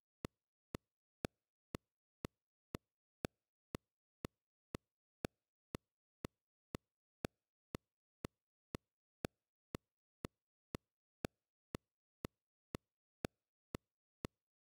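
Metronome click track ticking steadily at 120 beats a minute, two short clicks a second, with nothing else playing: the count through an eight-bar rest in the trumpet part.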